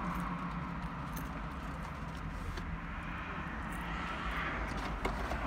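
Steady low hum of a car idling, heard from inside the cabin.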